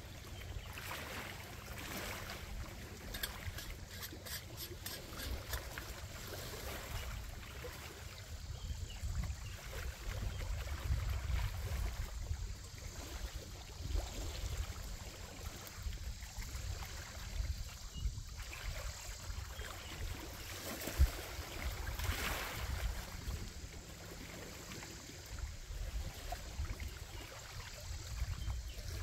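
Small lake waves lapping and splashing against a rocky shore, with wind rumbling on the microphone. A single sharp click stands out about three-quarters of the way through.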